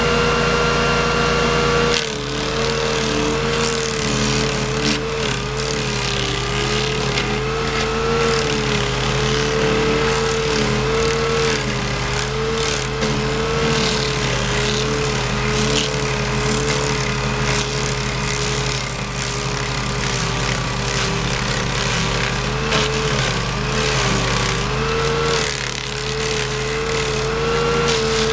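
Stump grinder running under load, its cutter wheel chewing into a tree stump with a dense hiss and spatter of flying wood chips over the machine's engine note. About two seconds in the sound shifts from a steady engine note to the cutting, and from then on the engine note wavers slightly.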